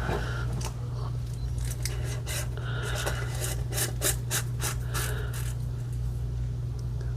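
Handling noise of small objects being rubbed and scraped: a quick run of short scrapes and clicks over a steady low hum, ending about two-thirds of the way through.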